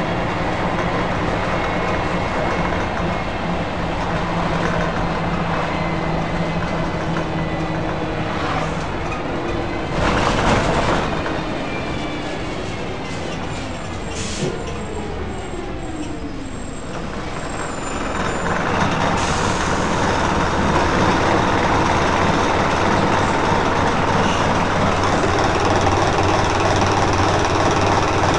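Scania L113CRL bus's diesel engine heard from inside the saloon as the bus drives. A short burst of air hiss comes about ten seconds in, a whine falls in pitch as the bus slows, and from about eighteen seconds in the engine grows louder as it pulls away.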